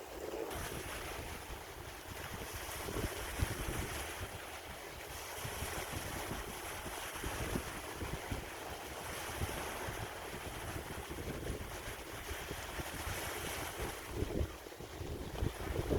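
Sea waves washing in and out, with wind buffeting the microphone in irregular gusts.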